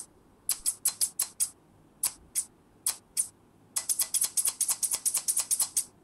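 Scissors snipping with sharp, crisp clicks: a quick run of about six snips, then two slower pairs, then a fast run of about eight snips a second near the end.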